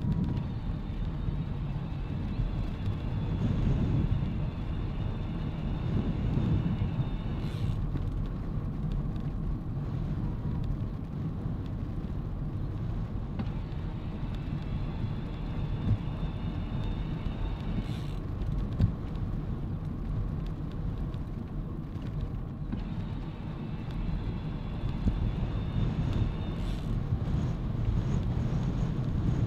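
Steady low rumble of wind on the microphone and bicycle tyres rolling on a tarmac road. A faint high whine comes and goes three times, each time ending in a short click.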